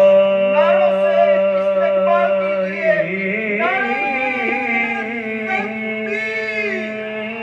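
A man's voice chanting a long devotional melodic line: one note held for about three seconds, then drawn out through wavering, ornamented turns, with no instruments.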